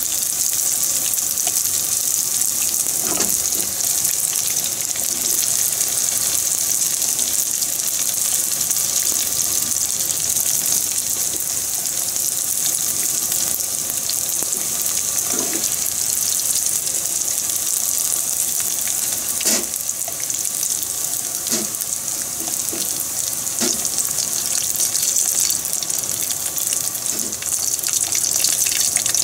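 Breaded squid rings deep-frying in hot oil in a frying pan: a steady bubbling hiss, with a few short light knocks as wooden chopsticks turn them.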